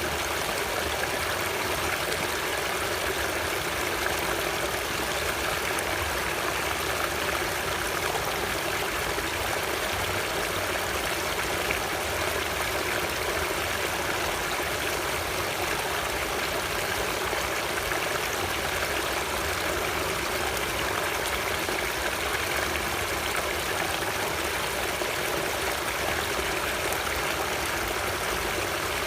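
Flowing water running steadily: an even, unbroken rush with no distinct splashes or pauses.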